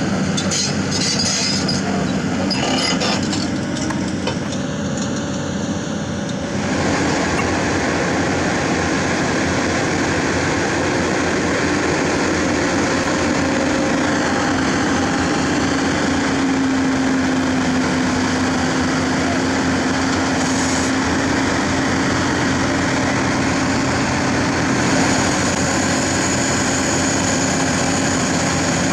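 Heavy diesel equipment engines running steadily: the excavator and the self-loader truck with its hydraulics. Some metallic clatter from the excavator's steel tracks on the truck bed can be heard in the first few seconds.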